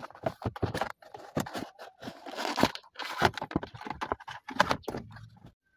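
Hard plastic center console trim of a Toyota Vios being handled and shifted by hand: a quick run of clicks, knocks and scraping rustles that stops near the end.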